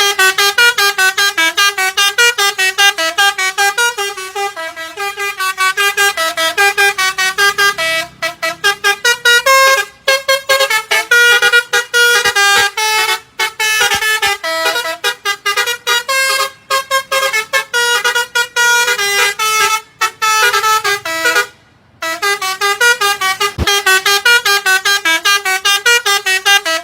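Telolet horn, a multi-tone musical vehicle horn, playing a long run of short staccato notes that jump between pitches in a tune, several notes a second. It pauses briefly a few times, the longest break coming about four-fifths of the way through.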